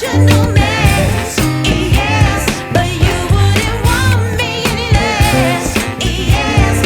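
Background pop music with a female singing voice over a steady beat and bass.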